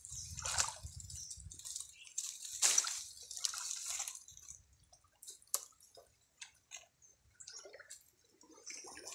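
Shallow stream water sloshing and splashing as someone wades and reaches into it during the first few seconds, then scattered small drips and clicks.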